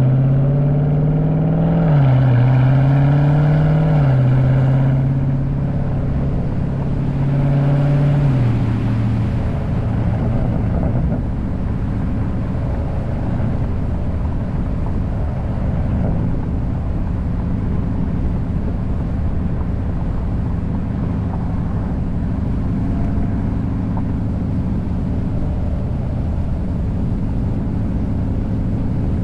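Mopar 392 HEMI V8 exhaust revving about three times, its pitch climbing and dropping back, then settling to a steady idle about nine seconds in.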